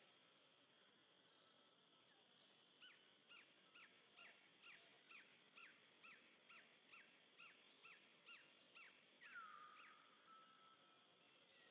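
Faint animal call: a run of about fifteen short, falling pitched notes at roughly two and a half a second, ending in one longer note that slides down and levels off.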